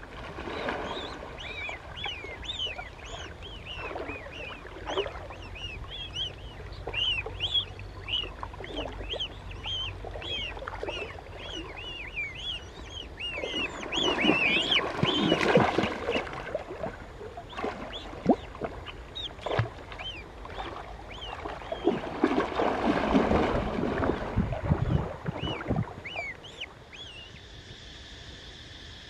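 A gosling peeping rapidly and continuously, with short repeated rising-and-falling cheeps. About halfway through, and again near the end, there are louder stretches of water splashing.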